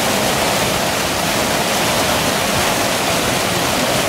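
Man-made rock waterfall pouring into a shallow pool, a steady rushing splash of falling water.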